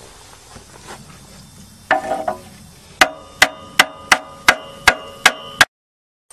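Hammer blows on a seized car alternator: a few softer knocks, then a quick run of seven sharp metallic strikes, about three a second, each ringing briefly. The sound cuts off suddenly near the end.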